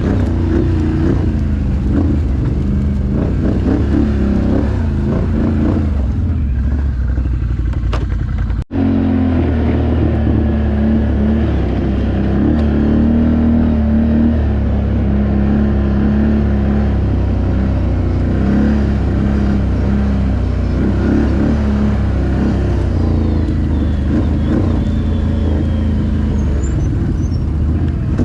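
ATV engine running under way, a loud steady drone with the revs rising and falling. The sound drops out for an instant about nine seconds in.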